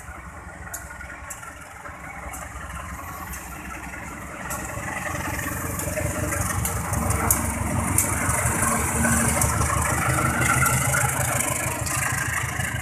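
CC 204 diesel-electric locomotive running as it approaches and passes hauling passenger coaches. Its engine grows louder about halfway through, with scattered sharp clicks over the rumble.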